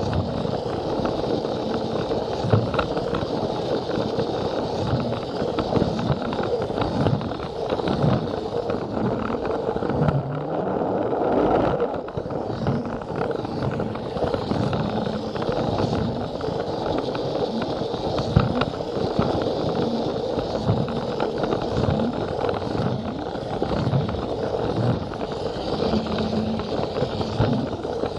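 Plarail battery-powered toy train running on plastic track, heard from aboard: the small motor drones at a steady pitch under a continuous rattling clatter of plastic wheels over the rail joints.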